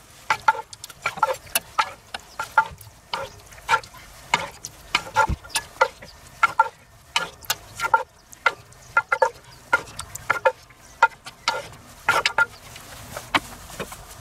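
Chunks of wild boar meat searing in a cast-iron Dutch oven over charcoal: irregular sharp crackles and pops, about three a second, as a wooden spatula stirs and scrapes the meat in the pot. There is a dull knock about five seconds in.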